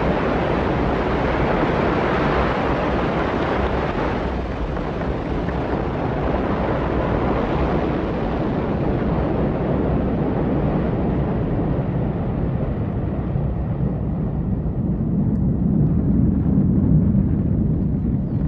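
Rocket liftoff noise from Ariane 5's main engine and two solid boosters: a loud, continuous rumble. Its hiss thins out over the seconds as the rocket climbs away, leaving a deep rumble that swells slightly near the end.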